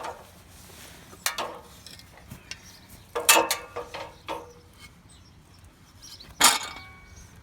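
Metal ladder clamp being handled: four separate clanks and rattles, the loudest two about three seconds in and near the end, the last one ringing briefly.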